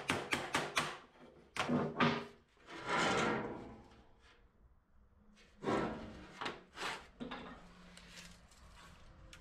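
Hand tool tapping rapidly along the edge of a thin aluminium sheet on a metal bench, about five knocks a second, stopping about a second in. Then the sheet clatters as it is handled, with a longer noisy rumble around three seconds in and a few more knocks and thuds later.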